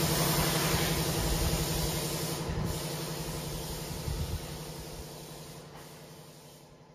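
Steady machine hum with a hiss, fading out gradually over several seconds, with a couple of low thumps partway through.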